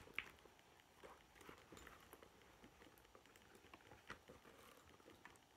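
Near silence, with faint rustles and a few light ticks of a leather handbag being handled and its compartments opened.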